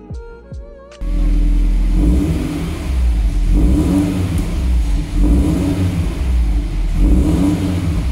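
Toyota 86's flat-four boxer engine revving repeatedly through a PowerFlow aftermarket exhaust with quad OEM tips, each rev swelling and dropping back every couple of seconds. It comes in abruptly about a second in.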